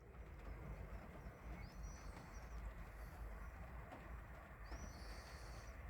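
Faint background noise with a low hum, and two brief high chirps, one about 2 seconds in and one near the end.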